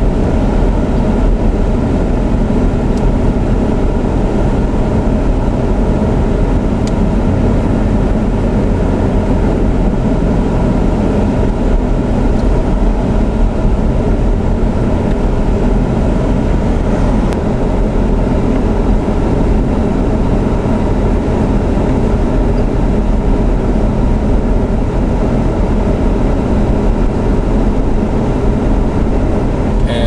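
Steady, even rumble of heavy vehicles on a snow-covered highway: engine and road noise from a line of snowplow trucks plowing the lanes.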